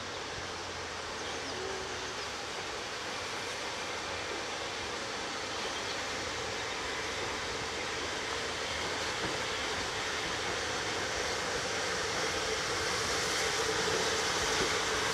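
Steam locomotive approaching along the line, a steady rushing noise from it that grows gradually louder as it draws nearer.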